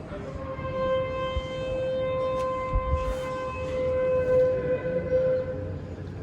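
Shofar (ram's-horn trumpet) sounding one long blast held at a steady pitch, which ends about five seconds in.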